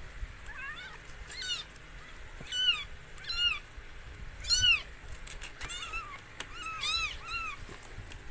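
A newborn kitten mewing: a run of about nine short, high-pitched mews that rise and fall, the loudest in the middle.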